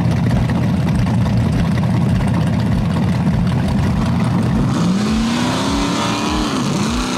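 Rock bouncer buggy's engine running loud and steady at low revs, then revving up about five seconds in as the buggy launches up the dirt hill. The revs dip once briefly and climb again near the end.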